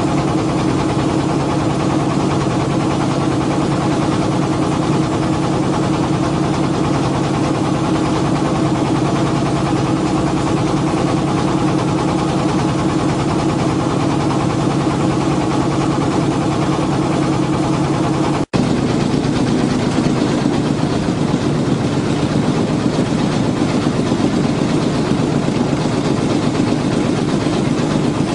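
Boat engine running steadily at a constant pitch. It cuts out for an instant about eighteen seconds in, and the tone shifts slightly when it resumes.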